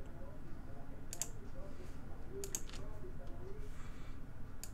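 Computer mouse clicks: a few sharp clicks spaced a second or so apart, two of them close together, over a faint steady background hiss.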